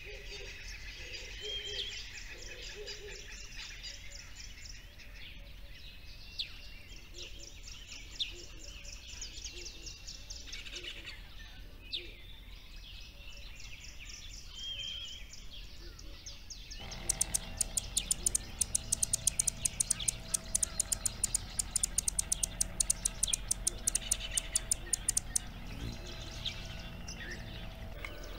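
Small birds chirping and twittering in quick high trills. About two-thirds of the way in, the background changes to a fast run of sharp ticks over a faint steady hum.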